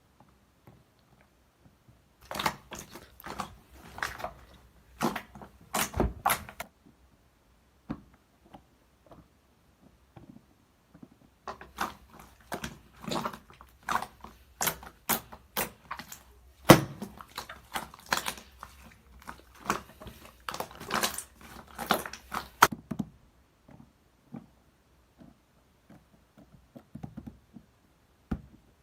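Irregular clusters of short clicks, taps and knocks, with quiet gaps between them.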